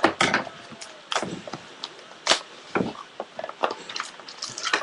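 Trading cards being handled during a pack break: a series of irregular sharp clicks, taps and swishes as cards are slid, flipped and set down.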